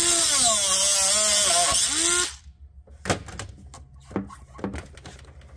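Right-angle rotary tool grinding off a metal Oetker ear clamp: a high motor whine that wavers in pitch as the bit bites, cutting off about two seconds in. A few light clicks and knocks follow as the clamp and hose are handled.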